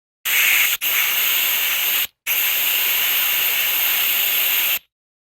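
Loud steady hiss, heard as a sound effect, broken by a brief dropout under a second in and a short gap about two seconds in, then cutting off abruptly.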